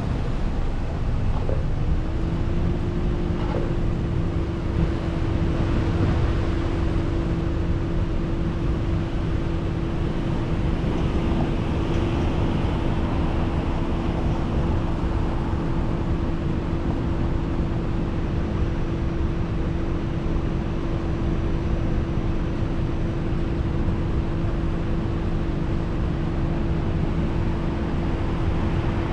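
Car driving: steady engine and road rumble, with a steady hum setting in about two seconds in and holding.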